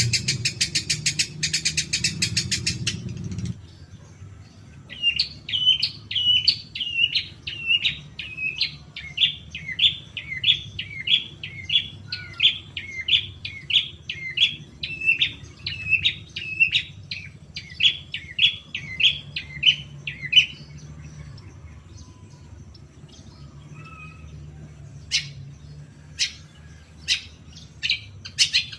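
Long-tailed shrike (cendet) singing. It starts with a rapid, harsh chatter for a few seconds, then repeats a clear call about twice a second for some fifteen seconds, then gives a few sharp clicks near the end. It is a lure recording meant to provoke a caged shrike into answering.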